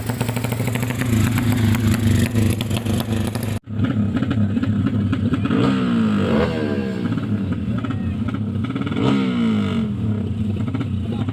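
Drag-racing motorcycle engines revving loudly. The sound cuts out abruptly about a third of the way in, then the engine pitch climbs and drops twice as the bikes are revved.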